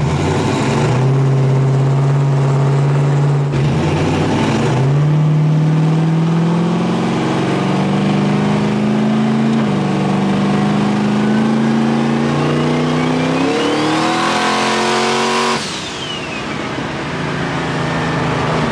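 Turbocharged 5.3 LS V8 of a methanol-fuelled Fox-body Mustang accelerating, heard from inside the car. The engine note climbs with two brief dips, then a high turbo whine rises along with it. About fifteen seconds in the throttle closes, the engine drops off and the whine falls away.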